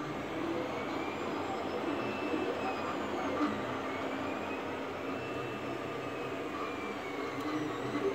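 3D printer running a print: steady cooling-fan whir with the stepper motors whining in pitches that glide up and down, repeating every couple of seconds as the print head moves.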